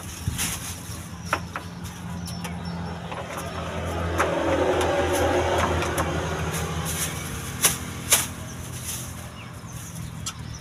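A motor vehicle's engine passing by, its low hum swelling to a peak about halfway through and then fading. Over it come sharp crinkles and snaps of a plastic bag being handled, the loudest two near the end.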